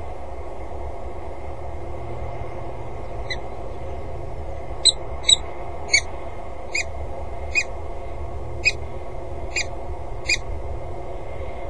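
A bird calling: a series of about ten short, sharp calls, a little under a second apart, over a steady low hum.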